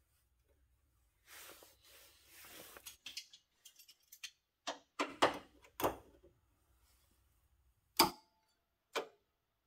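Sheet-metal repair pieces being handled and fitted into a pickup's cab corner: soft scraping and rustling, then a quick run of sharp metal knocks, and two short clanks about a second apart near the end, the first ringing briefly.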